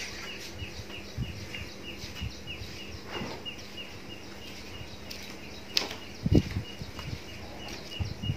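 A bird chirping outside, short high chirps repeated about three a second, over a faint steady hum. A few dull knocks and a crackle about six seconds in.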